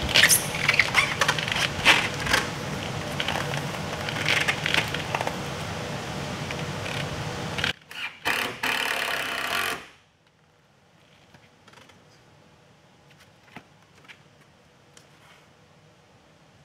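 Plywood transom panel scraping and knocking against the hull's edges as it is pushed and worked into place by hand, over a steady low hum. After about ten seconds the sound drops to near silence, with only a few faint ticks.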